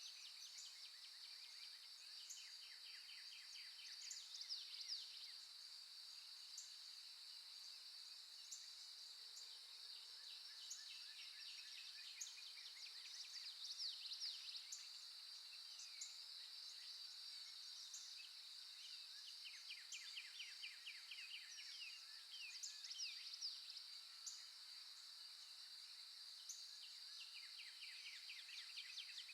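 Faint birdsong recording: birds chirping and giving rapid trills again and again over a steady high-pitched drone.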